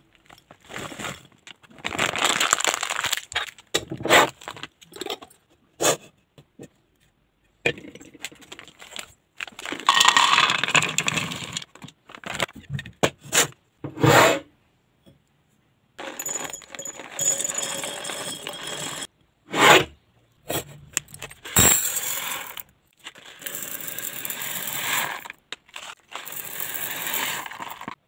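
Kitchen restocking sounds in short takes separated by brief silences: a plastic bag crinkling as dry food pours and rattles into glass and steel containers, with sharp clinks and scrapes of the containers on a table.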